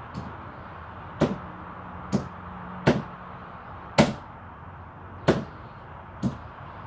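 A series of sharp knocks, seven in all, roughly one a second and unevenly spaced, the loudest about four seconds in, over a steady background hiss.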